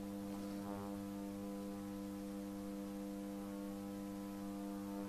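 Steady electrical hum, an even mains-frequency buzz with a stack of overtones, holding at one level throughout.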